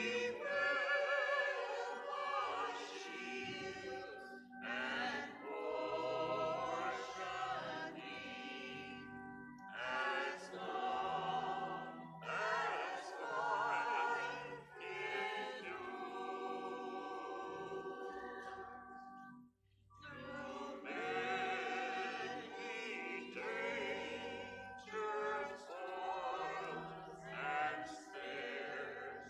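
A hymn sung with vibrato over steady, held accompaniment tones, in phrases a few seconds long. The music breaks off briefly about twenty seconds in, then goes on.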